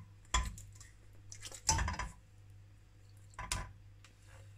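Stainless-steel bowl clanking and scraping against a steel pressure cooker as marinated mutton is tipped into it: three metal clatters, the loudest and longest about two seconds in.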